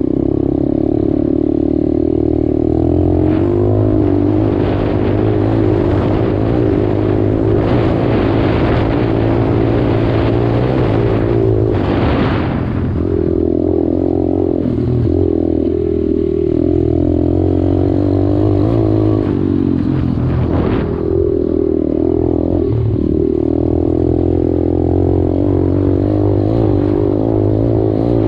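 125cc dirt bike engine running while riding a trail, its pitch rising and falling with throttle and gear changes. There is a louder, noisier stretch in the middle, about 5 to 13 seconds in.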